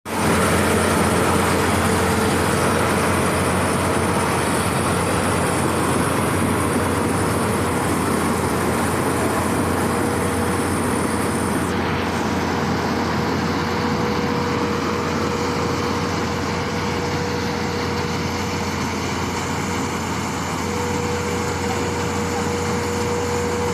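Maize threshing machine running steadily: a constant, even mechanical din with a steady hum, the high hiss thinning out about halfway through.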